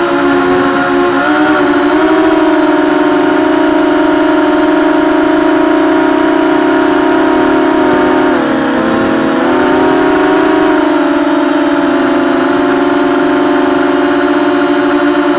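EMAX RS2206 2300KV brushless motor spinning a propeller at high speed, a loud steady whine. The pitch dips briefly and comes back up a little past halfway.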